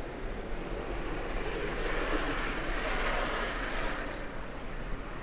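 Street traffic noise: a passing vehicle's tyre noise swells up about two seconds in and fades again a couple of seconds later.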